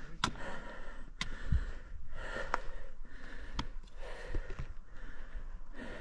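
A person breathing hard, in long audible breaths every second or two, with a few sharp clicks between them.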